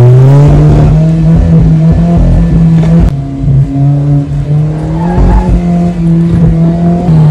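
Alfa Romeo 4C's turbocharged four-cylinder engine heard from inside the cockpit, pulling hard at fairly steady revs while the car is driven through a cone course, with brief dips and shifts in pitch about three and five seconds in.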